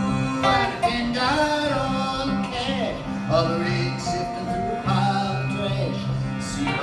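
Live acoustic music on lap-played slide guitars, a dobro among them, with notes sliding up and down over repeated steady low notes. A male voice sings long gliding lines without words over it.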